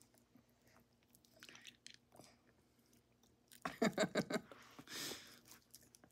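Hard candy cane being chewed and crunched in the mouth, a run of faint scattered crunches. About three and a half seconds in, a short loud voiced sound from a person, followed by a breathy exhale.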